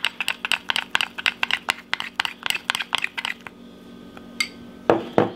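Metal spoon clinking quickly and rapidly against a small glass bowl while stirring sugar icing, about six clinks a second; the stirring stops about two-thirds of the way through, and two knocks follow near the end.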